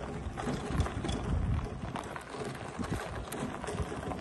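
Footsteps and small tyres crunching on gravel in an uneven run of steps, with a low rumble under them.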